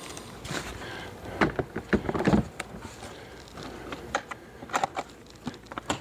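Hard plastic knocks and clicks as an Apimaye insulated plastic hive top is set down onto the hive and fitted into place. The loudest knocks come in a cluster about one and a half to two and a half seconds in, followed by scattered lighter clicks.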